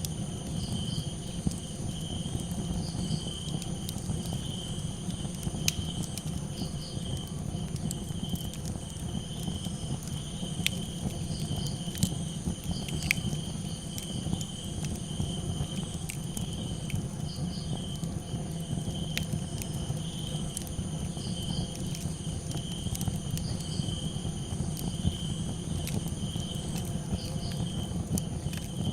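Crickets chirping in a steady pulsing trill, with a shorter, higher double chirp every couple of seconds. A campfire crackles in sharp, scattered pops over a steady low noise.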